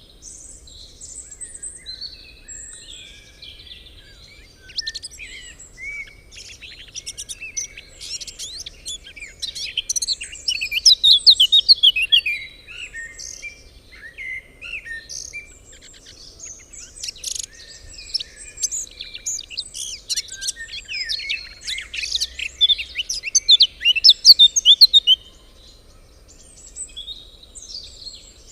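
Several songbirds singing and chirping together, a dense chorus of quick high trills and chirps, loudest in two bursts about a third of the way in and near the end.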